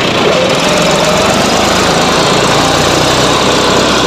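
Combine harvester's diesel engine running loud and steady as the machine drives along, heard from its open cab.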